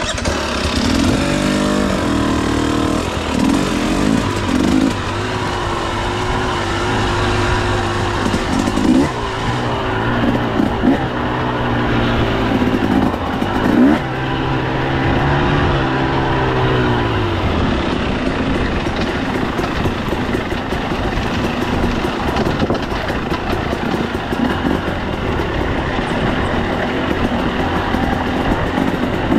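KTM 300 EXC TBI's single-cylinder two-stroke engine revving as the dirt bike is ridden, its pitch rising and falling with the throttle. After about 18 seconds the engine note gives way to a steadier noise with no clear pitch.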